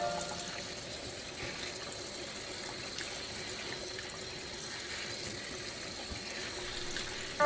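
Kitchen tap running steadily into a stainless steel sink, the stream splashing over cockles in a mesh strainer as they are rinsed by hand.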